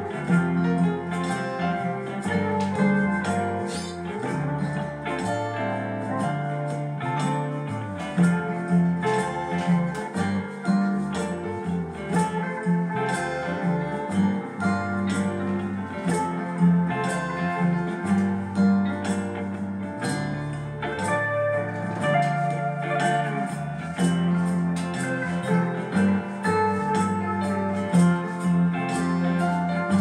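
Background music: plucked guitar over a moving bass line, with a steady light percussion beat.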